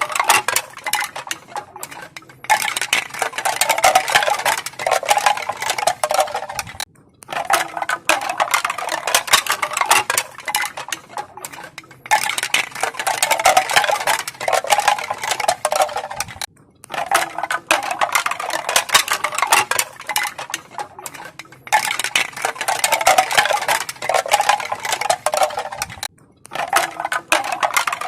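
Crisp clacking and rattling of bamboo pieces knocking together, a dense stream of small knocks. It comes in runs of about four and a half seconds, each broken by a short gap, repeating evenly.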